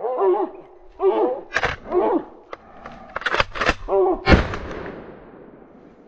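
Hunting dog barking repeatedly in short bursts while several gunshots crack out. The loudest shot comes about four seconds in and echoes off the surroundings.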